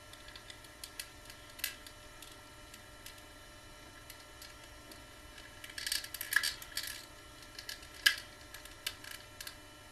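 Handling of a plastic action figure and its hard plastic backpack: scattered small clicks, a cluster of plastic clicks and rattles about six seconds in, and one sharp click about eight seconds in as the backpack is fitted.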